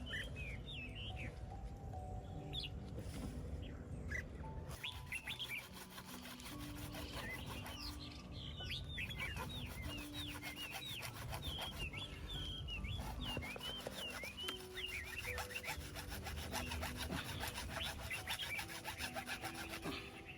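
Steady, fast sawing or rasping strokes, continuous from a few seconds in, with many birds chirping over it and soft background music underneath.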